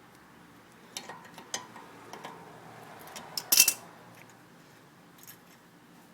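A few sharp metallic clicks and clinks at irregular intervals, the loudest a quick cluster about three and a half seconds in.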